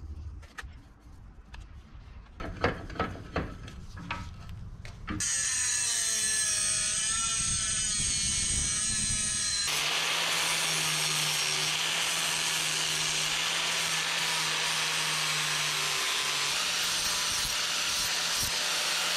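Handling taps and clicks for about five seconds, then a corded angle grinder starts and runs steadily, cutting a sheet-metal plate clamped in a bench vise; about ten seconds in the sound turns harsher and noisier as the disc bites.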